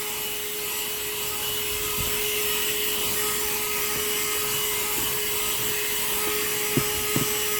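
Cordless mini handheld vacuum running with a steady whine, its extension nozzle rubbing over car carpet; two light knocks near the end.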